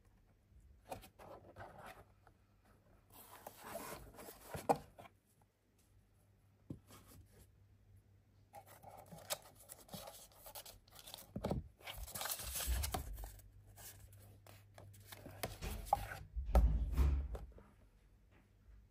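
Cardboard and plastic packaging of a headphone box being handled and opened: intermittent bouts of scraping, rubbing and tearing, with a sharp click just before five seconds in and soft thumps in the second half.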